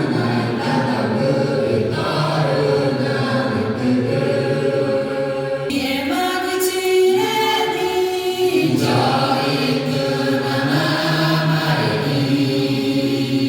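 A choir singing long held notes, the chord shifting about six seconds in and again around nine seconds in.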